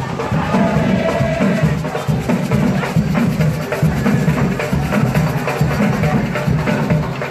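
Hand drums carried by marchers beating a dense, steady rhythm with sharp wood-block-like clicks, over the noise of a crowd.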